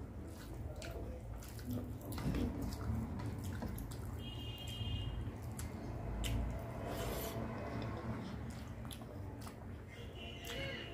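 Close-miked eating: wet mouth clicks and smacks while chewing a handful of rice and curry, with fingers squishing and mixing rice on a steel plate.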